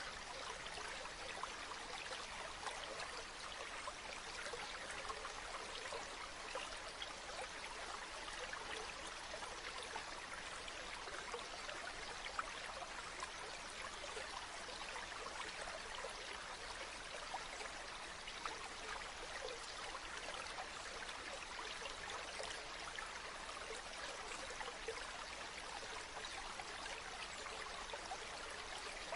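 Running water of a stream: a steady rush flecked with many small splashes and trickles.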